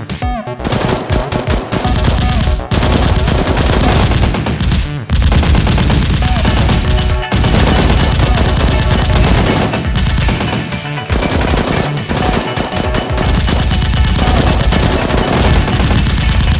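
Rapid automatic gunfire sound effects, near-continuous bursts of shots with short breaks every few seconds.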